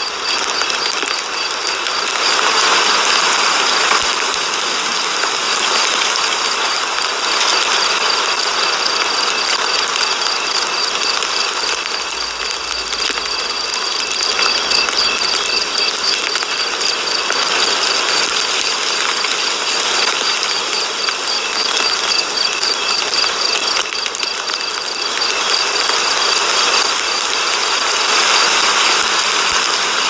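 Pickup truck engine idling at about 1,000 rpm, with a fast, even mechanical ticking over it.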